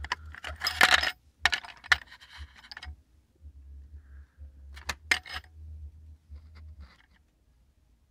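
Ceramic pin-grid-array chips clinking against one another and against their plastic drawer, their metal pins rattling, as they are lifted out and handled. There is a flurry of sharp clinks in the first three seconds, another cluster about five seconds in and a few fainter ones after, over a steady low hum.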